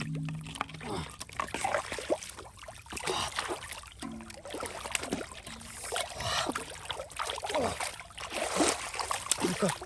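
Water splashing, sloshing and trickling in irregular strokes as the pond water is disturbed.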